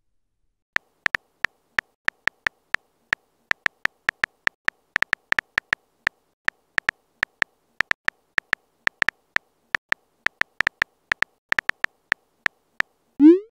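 Phone-keyboard typing clicks from a texting app: short, light ticks at an uneven pace of about three to four a second as a message is typed out letter by letter.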